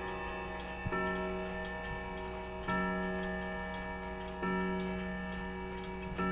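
Serviced Hermle triple-chime wall clock movement striking the same low note four times, about 1.8 s apart, each stroke ringing on: the hour count after the chime. Its escapement ticks faintly underneath.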